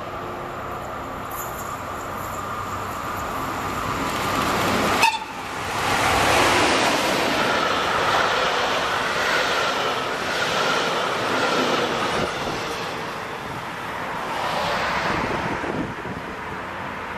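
Passenger train approaching and growing louder, with a sudden loud gust as the locomotive passes close about five seconds in, then a long string of coaches rolling past with steady wheel-on-rail noise that slowly eases.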